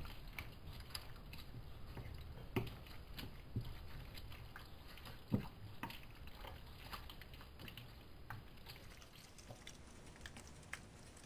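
Wooden spoon stirring a wet onion, egg and cream filling in a ceramic bowl: faint squelching with irregular light knocks of the spoon against the bowl. Near the end the filling is scraped out of the bowl into the tart pan.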